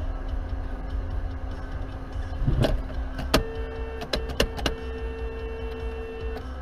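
Car moving in slow traffic, heard from inside the cabin: a steady low engine and road rumble. In the middle come several sharp clicks, and one of them starts a steady hum that lasts about three seconds.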